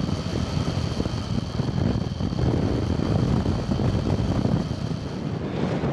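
Strong wind buffeting the microphone: a loud, gusty low rumble.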